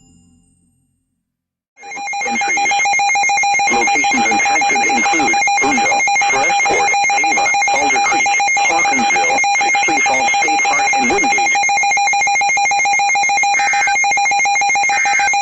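Emergency Alert System attention tone, a loud, steady alarm tone that starts about two seconds in and holds unchanged. It plays over crackling reception noise, with a faint voice underneath it for a while.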